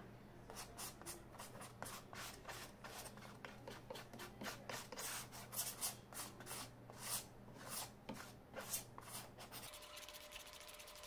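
Metal palette knife scraping and spreading acrylic paint across a stretched canvas in quick, irregular strokes. The strokes stop shortly before the end.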